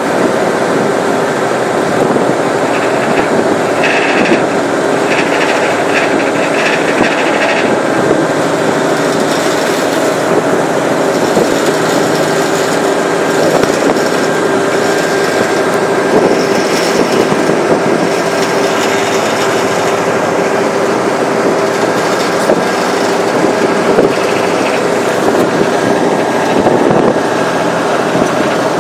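Steady drone of a river ferry's engines under way, with a constant hum and a few held tones over a rushing noise.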